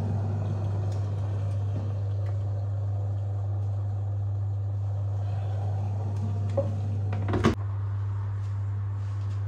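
A steady low electrical hum from a running appliance, with one sharp click about seven and a half seconds in.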